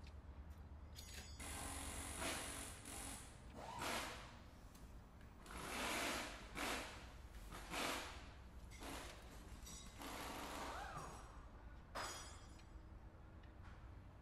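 Die-cast toy cars handled on a plastic playset: faint clicks, clacks and short scrapes as the cars are picked up, rolled and set down on the plastic car lift and roadway, coming as a string of separate bursts.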